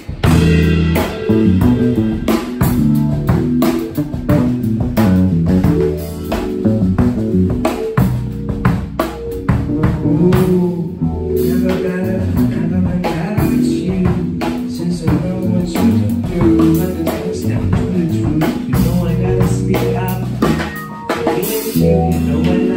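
Live band playing an instrumental passage: a drum kit beat under keyboard and bass.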